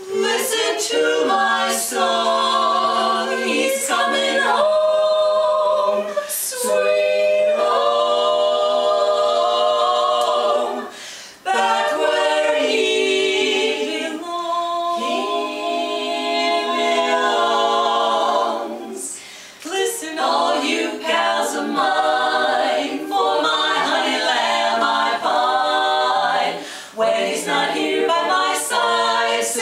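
Women's barbershop quartet singing a cappella in four-part close harmony: held chords in phrases, with short breaks between them. The singing starts at the very beginning.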